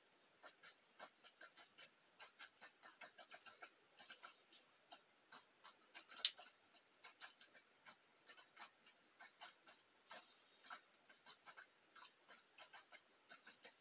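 Faint, irregular clicking and popping from a small aquarium, several clicks a second, with one sharp, louder click about six seconds in.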